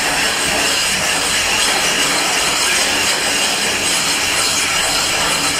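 A piece of aerated concrete block rubbed over a plastered wall, a steady gritty scraping as it abrades and levels the plaster.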